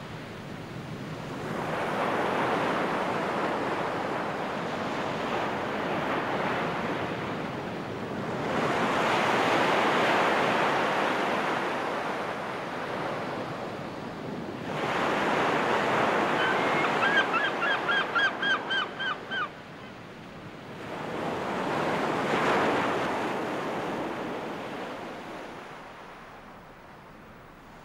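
Sea waves breaking and washing up a sand beach in four slow swells. Past the middle, a bird gives a quick run of about ten short calls.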